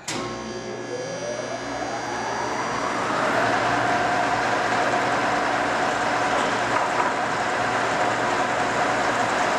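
A Cincinnati No. 5 vertical milling machine's 25 HP main motor and spindle drive switched on: it starts suddenly, whines up in pitch over about three seconds as it comes up to speed, then runs steadily.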